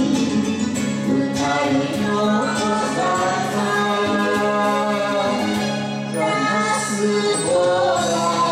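A man and a woman singing a Japanese enka duet into handheld microphones over instrumental accompaniment.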